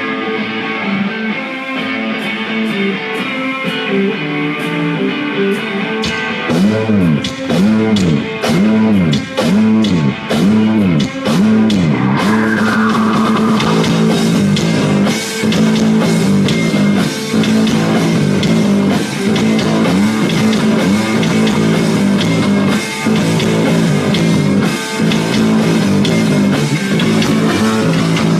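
Rock band playing live with distorted electric guitar and drum kit. A guitar riff plays alone at first, the drums come in about six seconds in under a run of swooping bent notes, and from about twelve seconds the full band plays hard.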